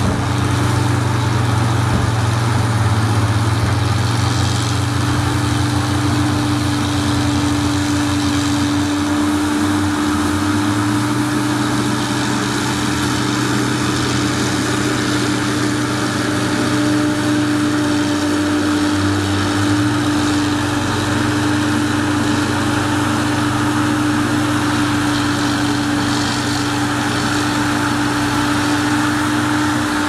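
Caterpillar motor grader's diesel engine running steadily while the blade grades dirt, with a continuous drone whose engine note shifts slightly about ten and twenty seconds in.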